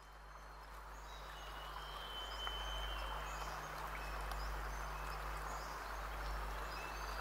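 Outdoor ambience fading in: small birds chirping and whistling high over a steady hiss, with a low rumble beneath.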